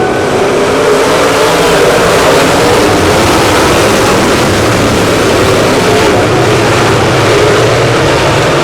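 Dirt late model race car engines running at speed on the track, a loud, steady engine noise.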